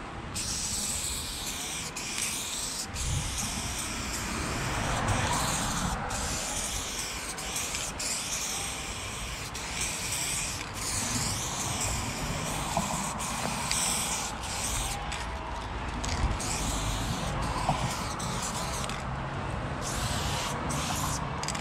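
Aerosol spray paint hissing from a can fitted with a Montana Level 6 fat cap, sprayed in long passes broken by brief gaps where the nozzle is let go.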